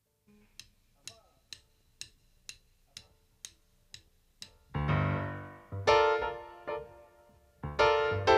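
A count-in of sharp, evenly spaced clicks, about two a second, then keyboard chords come in about five seconds in, piano and electric piano struck in short syncopated stabs over deep bass notes, each left to ring and die away.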